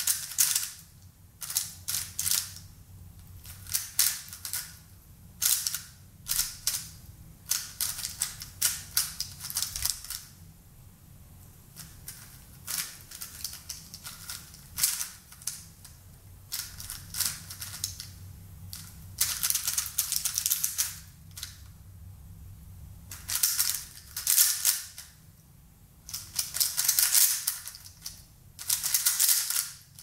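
Plastic 3x3 speedcube being turned by hand: fast runs of clicking, clacking turns in bursts of a second or two, separated by short pauses.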